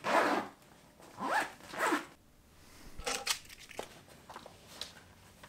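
Handling noise: a short rustle, then two quick rising zip-like pulls, then a few sharp clicks and faint ticks.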